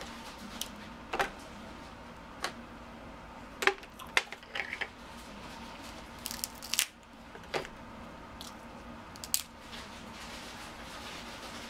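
Cooked crab leg shells cracking and clicking as they are broken apart by hand and the meat is pulled out: a dozen or so sharp, scattered snaps and clicks over a faint steady hum.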